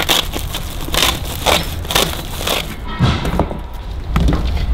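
Handling noises as a woven sack is cut open and fuel is laid on the oven's metal grate: a series of short knocks and rustles about every half second over a steady low rumble.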